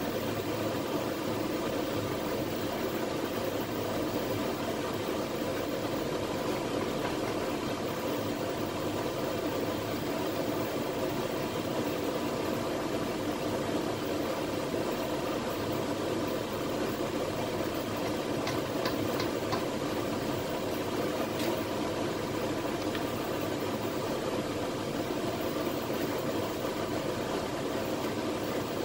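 Steady running hum of a double-boiler soap cooker heating a pot of hot-process soap, with a few faint ticks about two-thirds of the way through.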